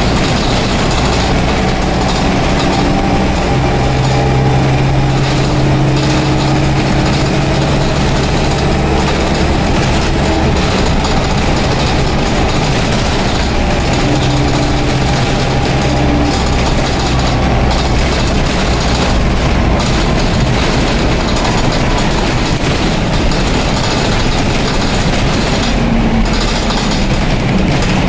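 The interior of a Dennis Dart bus on the move: its Cummins diesel engine and Allison automatic gearbox run beneath a steady blanket of road and body noise. A low engine note holds steady for several seconds twice, then falls back into the general noise.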